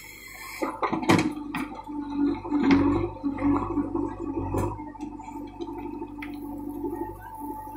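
JCB 3DX backhoe loader's diesel engine running under load with a steady hum as the backhoe bucket digs into a pile of soil and stones. Sharp knocks and scrapes of stones against the steel bucket come about a second in and again around three and four and a half seconds in.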